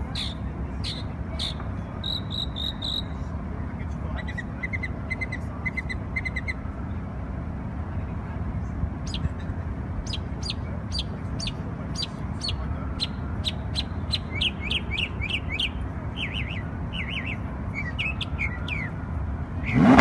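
Small songbirds chirping, with runs of rapid trilled and repeated notes and many quick down-slurred calls, over a steady low city traffic rumble. Right at the end a Lamborghini engine revs, suddenly and loudly, rising in pitch.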